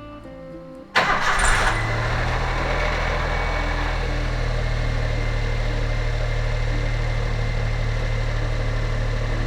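Daihatsu Xenia 1.0's three-cylinder petrol engine starting about a second in, with a brief crank that catches at once, then settling into a steady idle. This is the start test after its throttle body and idle speed control valve were cleaned.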